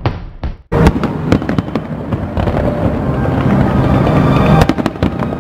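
Aerial fireworks bursting: after a brief fade and dip just under a second in, many sharp bangs and crackles come in quick succession.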